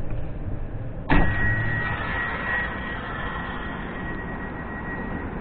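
Passenger door of an Ivolga electric train opening: a sudden clunk about a second in, followed by a steady high electronic beep lasting about four seconds, the door's signal tone, over the hum of the train.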